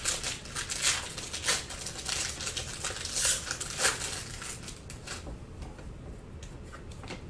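Trading card pack wrapper being crinkled and torn open by hand, in irregular rustles that grow fainter after about five seconds.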